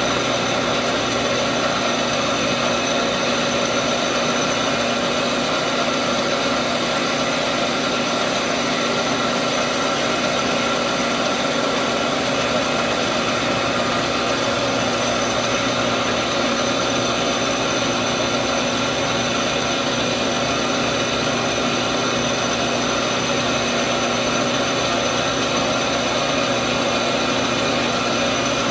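Metal lathe running steadily while turning down the outside diameter of a steel shotgun barrel, a constant motor and gear whine with the noise of the cut.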